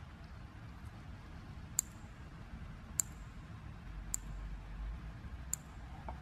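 Four sharp plastic clicks, about a second apart, as fuel injector harness connectors are snapped onto the injectors and their locking tabs pressed home, over a low, soft rumble of wiring being handled.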